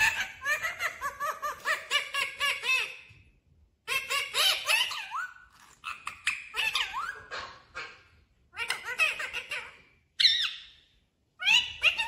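Rose-ringed parakeet (Indian ringneck) chattering: rapid strings of squeaky chirps that rise and fall in pitch, in five or six bouts with short pauses between.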